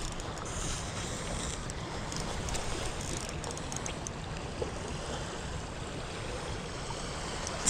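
Steady, even hiss of water outdoors by the lake, with a few faint ticks.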